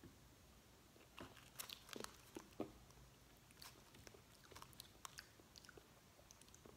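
Faint, scattered crunching clicks of a small pressed-sugar Ramune candy tablet being chewed.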